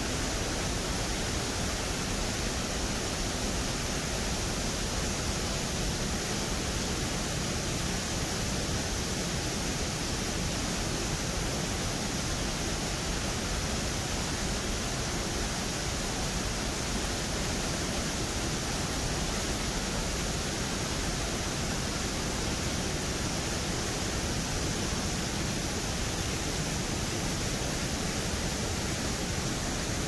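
The Rhine Falls at close range: heavy whitewater pouring over rock, a dense, steady rush of falling water that does not change.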